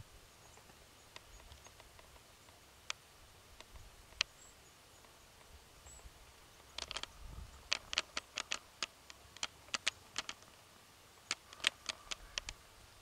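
An American mink moving about in crusted snow: scattered sharp clicks, then from about seven seconds in a quick run of crisp crunches and clicks.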